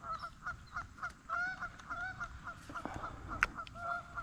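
A flock of birds calling in many short, repeated honks, several a second, over a low rumble of wind; a sharp click sounds a little after three seconds in.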